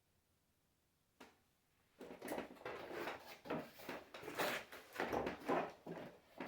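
Things being handled and shifted on a workbench: a single click about a second in, then a busy run of knocks, clatter and rustling.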